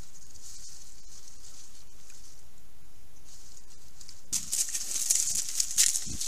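A steady high hiss, then about four seconds in a burst of crackling rustles and clicks as wild boar move and root through dry leaf litter.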